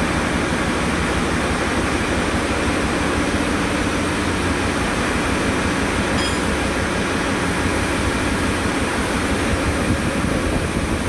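Steady, loud drone of a ship's engine-room machinery, an even rushing noise with no break.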